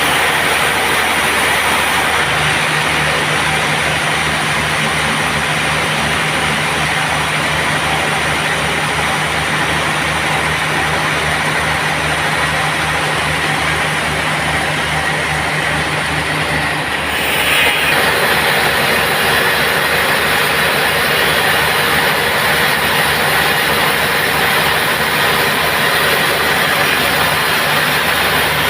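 Band sawmill machinery running steadily, with a fast low pulsing under it. About two-thirds of the way through, a low hum drops out and the sound briefly brightens, then the machine runs on.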